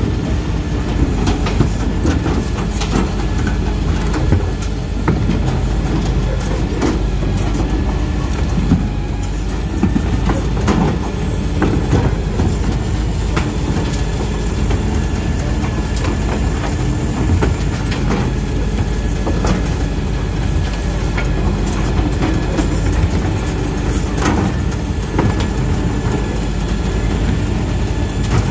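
Faun Rotopress rear-loading garbage truck running with its hydraulic bin lifter at work: a steady heavy rumble, with repeated knocks and clatter as plastic wheelie bins are lifted, tipped, banged and set down.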